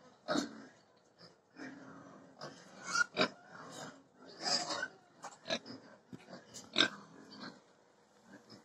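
Pigs grunting in short, irregular bursts, with a couple of sharp knocks, one about three seconds in and one near the end.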